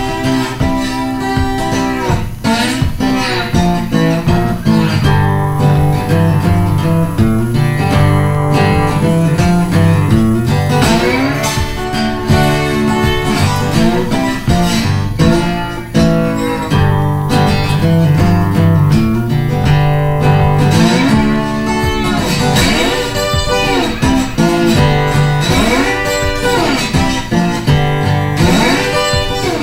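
Background music led by a guitar, with bent notes that slide up and down in pitch.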